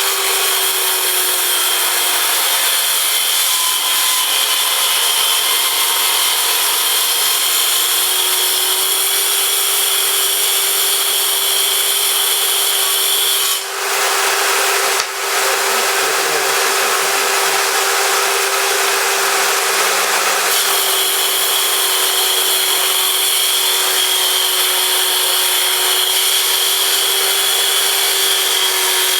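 A homemade table saw built from a Black & Decker Matrix circular saw attachment runs steadily with a constant motor whine while its blade cuts wood. Near the middle the sound dips briefly twice and its character changes for several seconds, then returns to the steady running.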